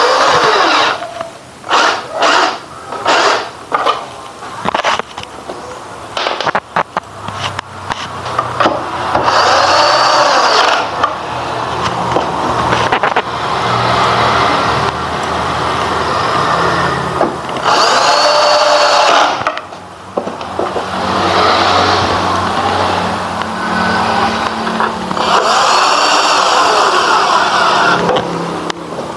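Power drill with a long bit, run in several bursts of a few seconds each; each burst rises in pitch as the motor spins up and falls as it slows. A series of sharp clicks and knocks from handling comes first.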